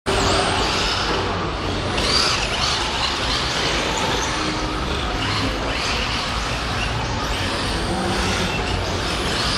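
Several radio-controlled drift cars running together, their small electric motors and drivetrains whining in a high pitch that rises and falls as they accelerate and slide through the corners.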